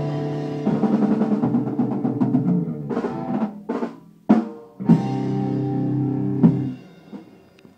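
Punk rock band with electric guitar and drum kit winding up a song: held guitar chords over drum rolls, then several loud accented hits together, after which the band stops about seven seconds in and the last sound dies away.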